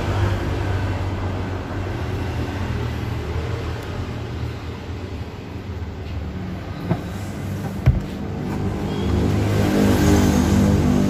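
A motor vehicle's engine running steadily with a low hum, growing louder near the end, with two short knocks a little past the middle.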